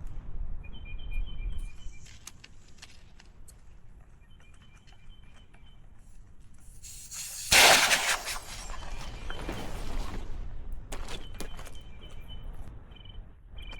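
Inflatable tent being taken down: scattered clicks and handling noise, with a loud rushing burst a little past halfway. A bird chirps on and off in the background.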